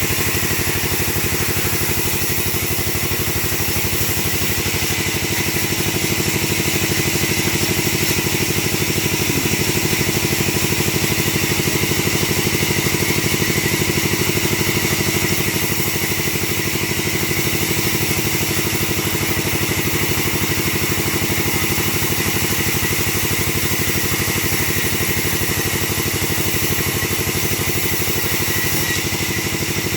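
Engine of a wood-splitting machine running steadily at an even pitch, with no change in speed.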